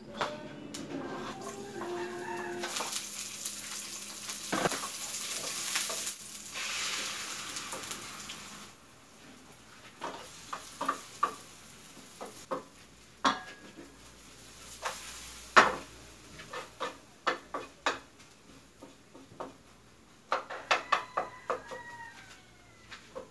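Beaten eggs sizzling loudly in hot oil in a frying pan for about six seconds, starting about three seconds in. The sizzle then dies down, and a wooden spatula scrapes and taps against the pan as the scrambled eggs are stirred.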